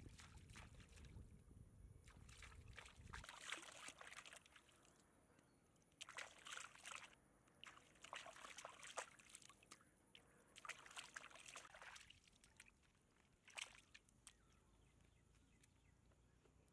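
Hands splashing and sloshing in shallow water while scrubbing green mangoes, in several short bursts of about a second each. A faint low rumble runs under the first three seconds, then stops.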